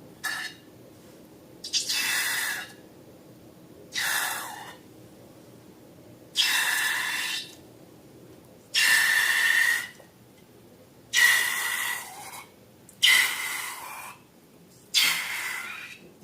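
Air hissing out of balloons in about eight short rushes, each around a second long and a couple of seconds apart, with a faint whistling tone in each.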